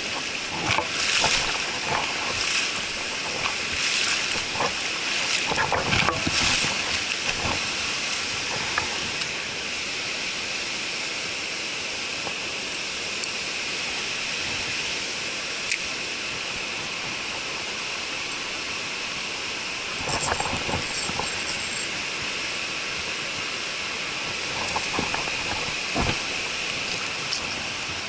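Mountain stream running over rocks: a steady rush of water, with a few brief knocks in the first several seconds and again about twenty seconds in.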